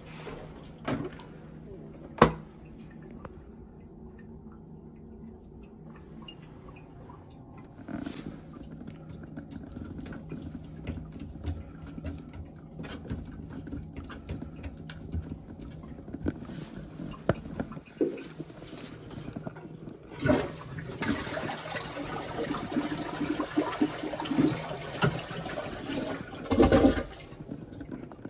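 A TOTO toilet flushing: water rushes through the tank and bowl for about seven seconds, starting about twenty seconds in. Before it there are scattered handling knocks and clicks.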